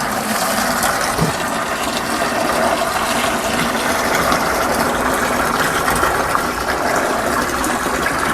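Rinse water draining out of a small portable washing machine in a steady rushing stream.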